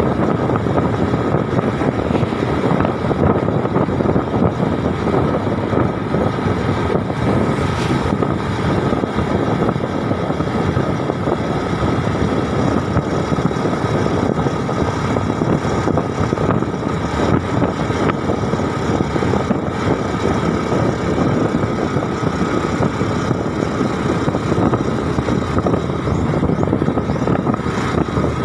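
Steady noise of a moving road vehicle heard from on board: engine and tyre noise mixed with wind, running evenly without change.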